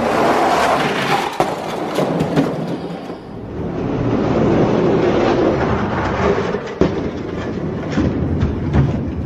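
Two die-cast Hot Wheels monster trucks rolling fast down a toy racing track: a continuous rolling rumble with scattered clicks and knocks as the wheels cross the track joints.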